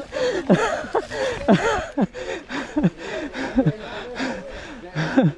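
A mountain biker panting hard, with a voiced groan on nearly every breath, most of them falling in pitch: the sound of exhaustion after a hard trail climb.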